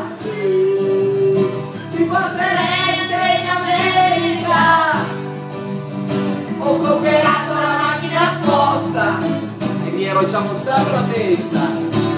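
Music: acoustic guitars playing with voices singing a song.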